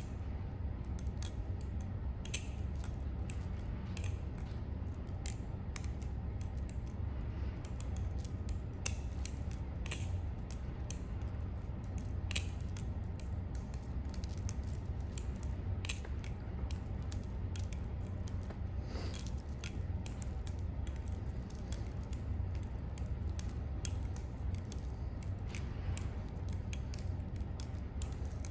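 Balisong (butterfly knife) being flipped: its handles swing and clack open and closed, giving sharp clicks at irregular intervals over a steady low hum.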